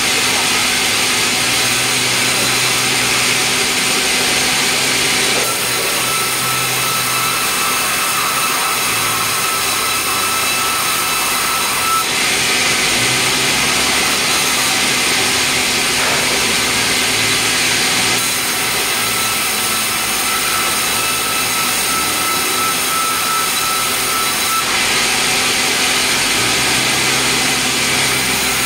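Sawmill band saw headrig running and cutting meranti timber. A steady high hiss and whine swells and eases in stretches of about six seconds as the log carriage feeds the log through the blade.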